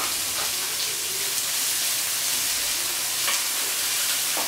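Freshly chopped onions sizzling in hot oil in a stainless-steel kadai: a steady frying hiss. A few light scrapes come from a wooden spatula stirring them against the steel pan.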